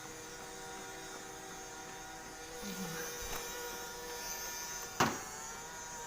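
Small USB-rechargeable robot floor cleaner running: a steady motor hum with a thin high whine over it, and one sharp knock about five seconds in.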